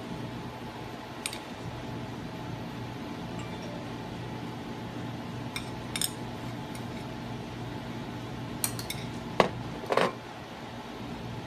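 Scattered light clinks and knocks of kitchen utensils and dishes during sushi roll preparation, with the two loudest knocks near the end, over a steady low hum.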